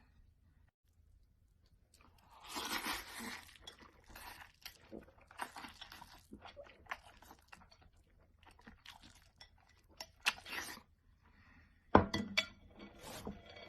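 Intermittent crunching and crinkling, with scattered short clicks and a single sharp knock about two seconds before the end.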